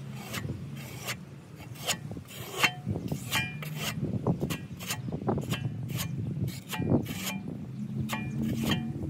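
Notched metal trowel scraping across a plywood board as it spreads and combs tile adhesive into ridges, in a series of short, irregular scraping strokes.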